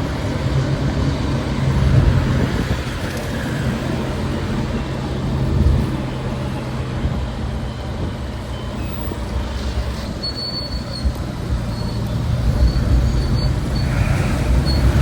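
Busy city street traffic: a steady mix of vehicle engines and tyre noise, with a thin high squeal that comes and goes in the second half.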